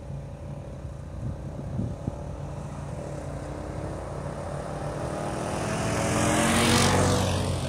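A vehicle passing by: it grows louder over several seconds to a peak near the end, its pitch dropping as it goes past, then begins to fade. A steady low hum runs underneath.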